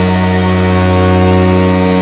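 Ice hockey goal horn, a sampled stand-in rather than a real arena air horn, sounding one long, steady, low blast.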